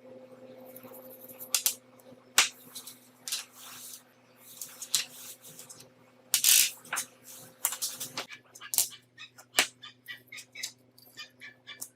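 A series of sharp knocks and clatter with short scraping noises, over a steady low hum that stops about eight seconds in. Near the end come quick, repeated high chirps.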